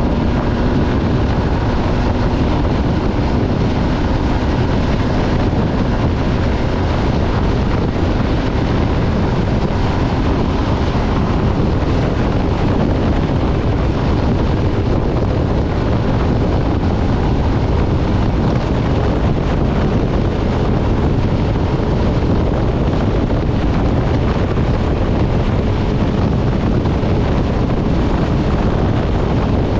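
MV Agusta Stradale 800's three-cylinder engine running at road speed, with steady wind rushing over the microphone and largely covering the engine note. The engine's pitch is a little clearer in the first few seconds, then sinks into the wind.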